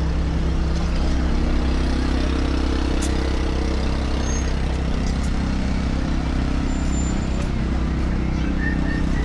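City street traffic: vehicle engines running steadily, with a constant low rumble and a few faint clicks.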